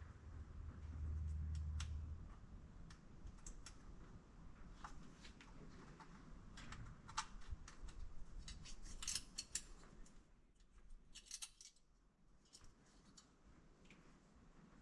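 Scattered light clicks and clinks, bunched together about nine and eleven seconds in, with a low hum during the first two seconds.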